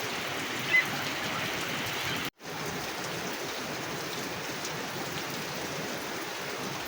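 Steady rain falling, an even hiss of drops. A single short high chirp sounds about a second in, and the sound cuts out for an instant a little over two seconds in before the rain resumes.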